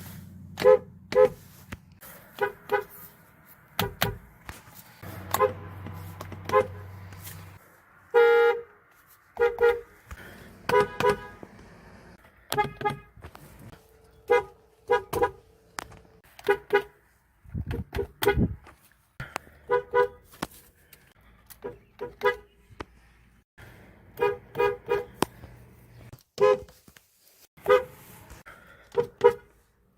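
Horns of various Mazda cars honked one after another: many short beeps, mostly in quick double taps, with a few longer held honks.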